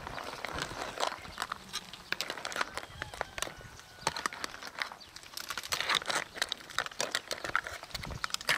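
Seafood stew boiling in a wide cast-iron cauldron-lid pan: irregular pops and clicks of bubbling broth around clam and conch shells, with bursts of hiss.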